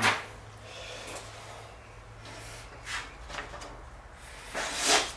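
A sheet of paper rustling as it is drawn against a freshly sharpened axe edge in a paper-slicing sharpness test, with one short, louder rustle near the end, over a steady low hum.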